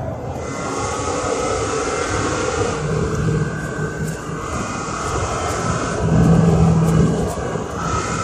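Engine and road noise of a moving vehicle heard from inside its cabin, a steady drone whose engine note swells for about a second around six seconds in.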